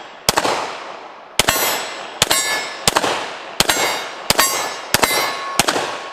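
Glock 17 9mm pistol firing eight shots at a steady pace, roughly one every half second to a second, each followed by the ringing clang of a steel silhouette target being hit. The ring of the last hit hangs on as a steady tone near the end.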